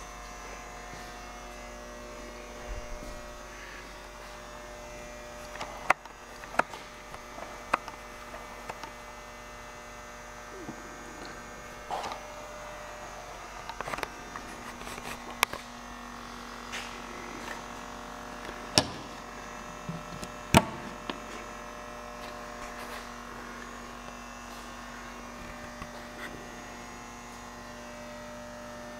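Steady electrical hum, with scattered sharp clicks and knocks, the loudest two about two-thirds of the way through.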